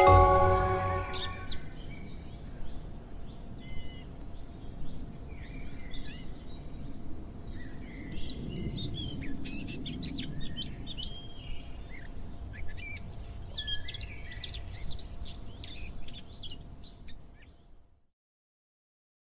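Many songbirds chirping over a low outdoor ambience, opening with a brief loud pitched tone in the first second or so. The sound fades out about sixteen seconds in and goes silent near the end.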